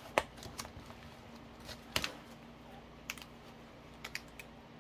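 Scattered light clicks and taps from a vinyl cash pouch and paper bills being handled on a tabletop, the sharpest click about two seconds in.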